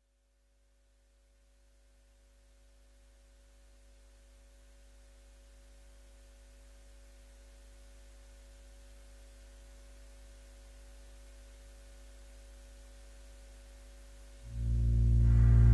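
Dance score opening: a deep, steady drone with a few held tones, fading in slowly. Near the end the music comes in suddenly and much louder.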